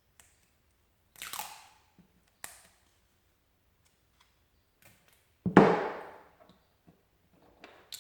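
Hands handling a jumper lead and tools on a workbench: a short rustling scrape a little over a second in, a sharp click, and a louder thump about five and a half seconds in, with a few faint knocks near the end.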